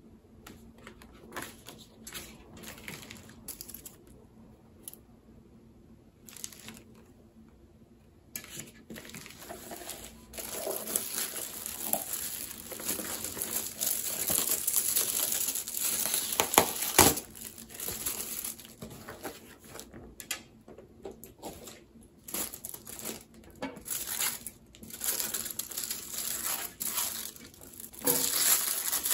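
Packaging being unwrapped by hand: crinkling and crumpling with sharp crackles and the occasional rip. Scattered and quiet at first, it turns louder and almost continuous about eight seconds in.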